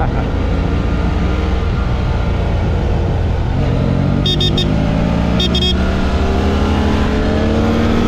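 Motorcycle engine running while riding, with wind rumble on the microphone. About halfway through, the engine note rises steadily as the bike accelerates.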